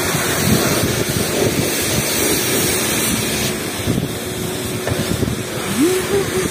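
Wind buffeting the microphone over the steady hiss of the car wash's high-pressure spray, with a faint steady hum underneath and a brief rising tone near the end.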